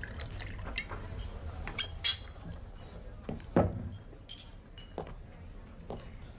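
Glass and bottle clinking and knocking on a wooden bar counter: light clicks, two sharp clinks about two seconds in, then a heavier knock a little later.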